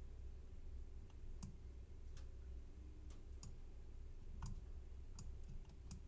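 Computer mouse clicking: about nine sharp, irregularly spaced clicks over a low steady hum.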